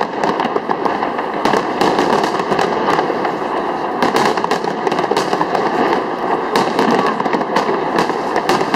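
Large fireworks display at full intensity: many shells bursting close together, making a dense, unbroken stream of bangs and crackles.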